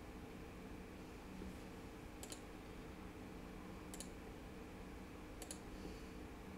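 Computer mouse clicking three times, a second or two apart, each click a quick double tick, over a faint steady hum.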